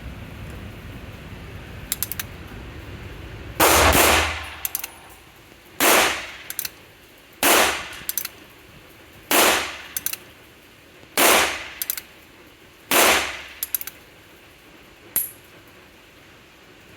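.22 LR firearm firing 40-grain cast round-point bullets: a string of about seven shots, roughly two seconds apart, each with a short echo and followed by light clicks. A fainter sharp sound comes near the end.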